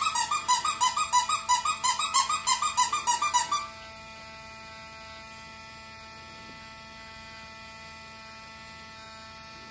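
Dremel rotary tool running with a steady whine, standing in for a dentist's drill. For the first three or so seconds a louder rapid pulsing, about four to five beats a second, rides over the whine, then stops.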